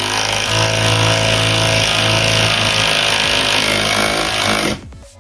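Cordless impact driver with a half-inch socket hammering a lag bolt through the TV mount bracket into a wall stud. It runs steadily and stops abruptly near the end.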